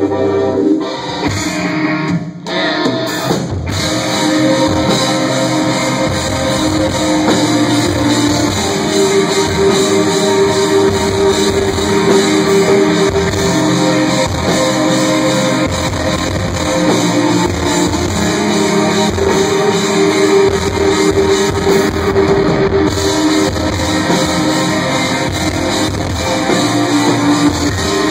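A rock band playing live, with electric guitar, bass guitar and drum kit, the guitar holding sustained notes over the drums.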